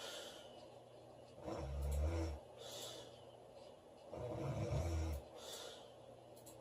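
A woman snoring in her sleep. There are two low snores, the first about a second and a half in and the second about four seconds in, each followed by a short hissing breath.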